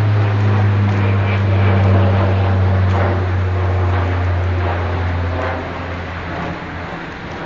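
Low, steady rumble of a jet aircraft's engines, swelling about two seconds in and fading away near the end.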